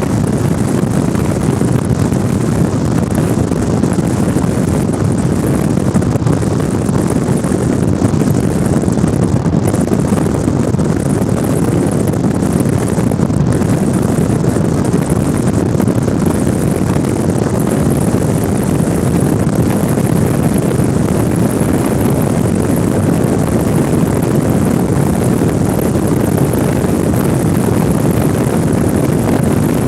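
A vehicle driving, with a steady, even rumble of engine and road noise.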